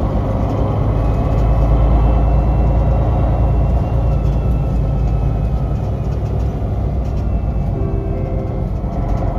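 Inside the passenger cabin of a 2005 MAN NL263 Lion's City city bus under way: its MAN D2866 six-cylinder diesel and Voith DIWA automatic gearbox give a steady low rumble with a faint high whine. The rumble eases about four seconds in.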